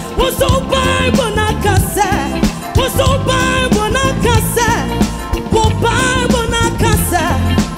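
Live gospel praise music: women's voices singing with vibrato over a band with a steady bass line and drums.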